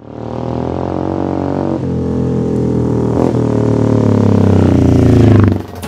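Manx Norton single-cylinder racing motorcycle engine running hard as the bike accelerates toward and past close by, with two brief dips in the note about two and three seconds in, growing louder to a peak near the end before falling away.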